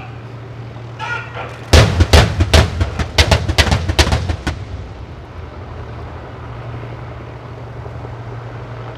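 Live military gunfire: a rapid, irregular volley of about a dozen sharp cracks over roughly three seconds, over a steady low engine hum.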